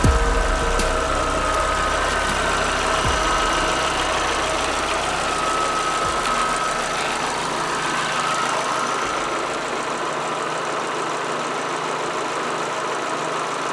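2011 Chevrolet Tornado's four-cylinder petrol engine idling steadily, heard from the open engine bay.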